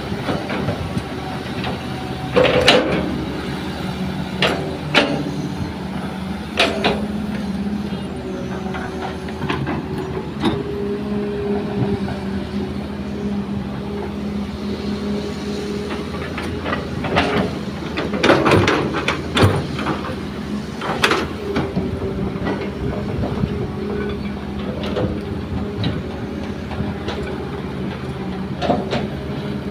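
Heavy diesel engines of a crawler excavator and a dump truck running steadily, with sharp metal clanks and knocks every few seconds and a cluster of them a little past halfway.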